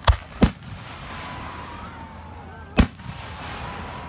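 Fireworks going off: three sharp bangs, two close together right at the start and a third about three seconds in.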